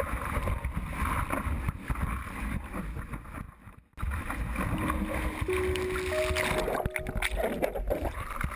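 Rushing, churning water and wind buffeting a camera mounted on the nose of a surfboard as it rides through whitewater and along a wave, with heavy low rumble; the sound drops out briefly about four seconds in.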